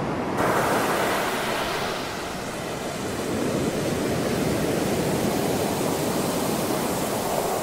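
Ocean surf: waves breaking and washing up a beach, a steady rushing noise that comes in abruptly just under half a second in, eases a little, then swells again about three and a half seconds in.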